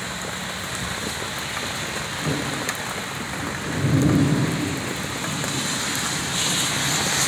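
Heavy rain falling steadily on pavement, with a brief low rumble about four seconds in. Near the end, the hiss of a car's tyres on the wet road rises.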